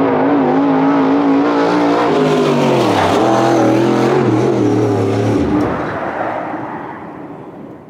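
Race car engine running hard at steady high revs. Its pitch drops about three seconds in, holds lower for a couple of seconds, then the sound fades away near the end.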